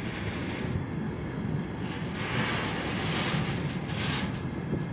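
Container freight train's flatcars rolling past: a steady rumble of wheels on the rails, with a louder rushing noise in the middle.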